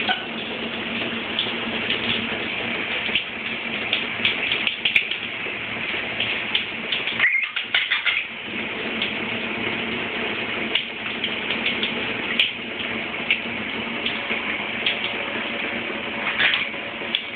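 Shower running with a steady hiss of spray, and a Quaker parrot's short chirps breaking in now and then, most around seven or eight seconds in and again near the end.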